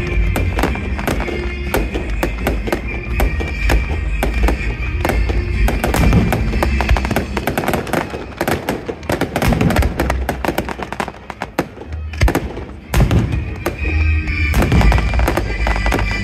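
Fireworks going off in rapid bangs and crackles, with loud music playing alongside. The bursts thin out briefly about twelve seconds in, then pick up again with a loud bang.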